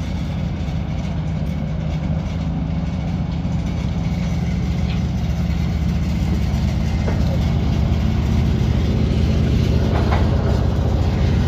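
A vehicle engine running steadily with a low rumble that grows slightly louder, with a few faint short squeaks.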